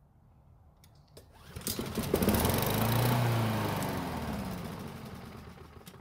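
Honda GCV lawn mower engine pull-started on fuel poured into the carburetor. It catches about a second and a half in, runs with its pitch rising then falling, and dies away near the end. Running only briefly on hand-poured fuel points to fuel not getting through the carburetor, which the owner suspects could be a carb problem.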